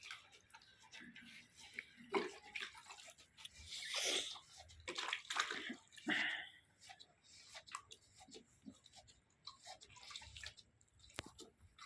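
Milk squirting into a pail as a desi cow is milked by hand, in uneven spurts.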